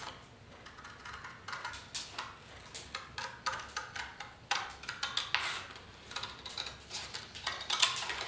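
Scissors cutting through a cardboard template: a run of irregular snips that come closer together in the second half.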